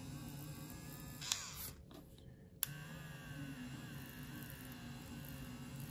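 Battery-powered electric eraser whirring as its spinning tip rubs out pencil lines on paper, the whine wavering as the pressure changes. It stops briefly about two seconds in and starts again with a click.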